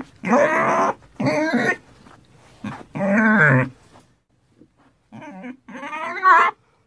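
Pig squealing: about five drawn-out, wavering squeals. Three loud ones come close together, then after a pause of about a second two more, the last swelling to the loudest.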